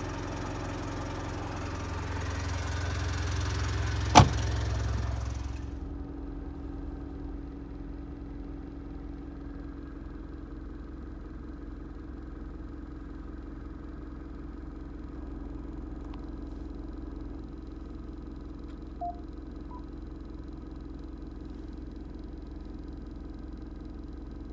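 Steady low hum inside a parked Mitsubishi Delica D5's cabin. A rushing noise swells over the first few seconds and stops suddenly, and a single loud sharp click comes about four seconds in.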